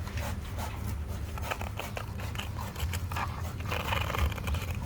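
Toy construction vehicles being played with in sand: scattered scrapes, crunches and light clicks over a low steady rumble.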